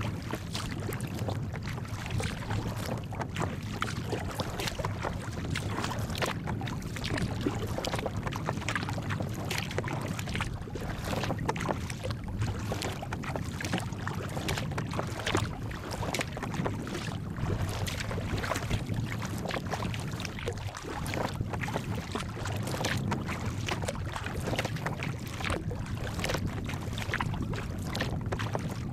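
Kayak moving through choppy water, waves splashing and slapping irregularly against the hull, with a steady wind rumble on the microphone.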